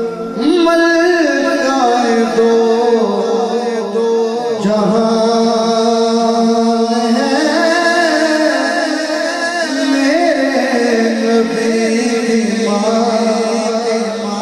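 A man singing a naat, an unaccompanied devotional poem, solo into a microphone in long, ornamented, wavering phrases. A steady held drone note sounds beneath the voice.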